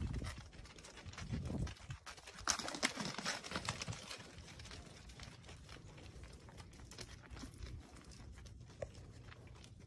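Deer hooves clicking and tapping on a concrete driveway as several deer walk about and come up close, with rustling, loudest from about two and a half to four seconds in.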